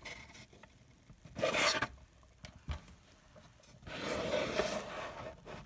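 A hand rubbing against the paper-towel lining and plastic sides of an egg tub: two rustling scrapes, a short one about a second and a half in and a longer one around four seconds in.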